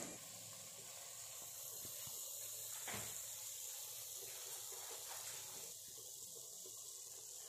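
Faint steady hiss of a banana-flower and potato curry sizzling low in the pan, with one light tap about three seconds in.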